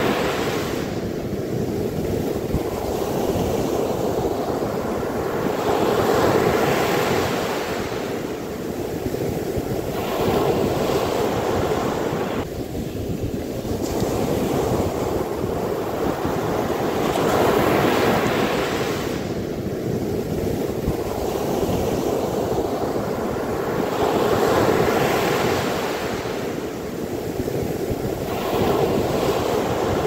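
Ocean surf breaking and washing up a sandy beach, the rush of water swelling and easing about every five to six seconds.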